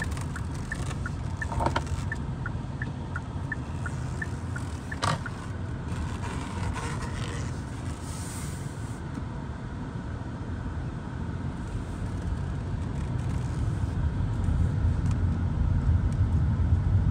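Small car driving slowly, heard from inside the cabin: a steady low engine and tyre rumble that grows louder near the end. The turn signal ticks at about three clicks a second for the first few seconds, and there are a couple of single knocks.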